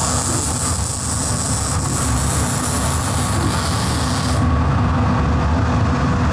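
Electric welding arc hissing and crackling on steel tube as the loop is welded onto the S51 frame, cutting off about four seconds in. A steady low rumble runs underneath throughout.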